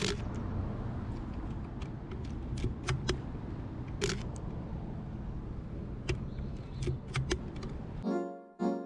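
Steady outdoor city background rumble with scattered sharp clicks and ticks, the strongest at the very start and about four seconds in. Piano music begins about eight seconds in.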